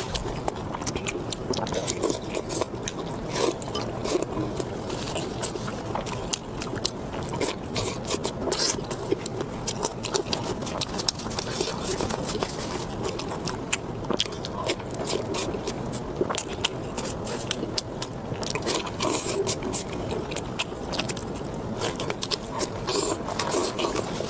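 A person chewing and biting food close to the microphone, with a steady run of small, irregular mouth clicks throughout.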